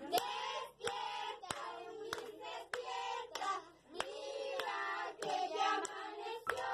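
Hand claps at an uneven pace, about two a second, with a high voice singing or chanting along.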